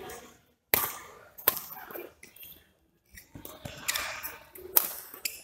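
Badminton rackets hitting a shuttlecock in a doubles rally: a string of sharp cracks, the loudest about a second in, a second and a half in, and near the end, with quieter court noise between.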